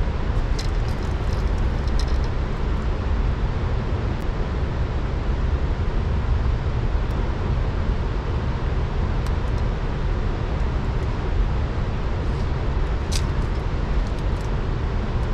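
Steady low rumble of water rushing through the dam's open gates, with a few small clicks over it.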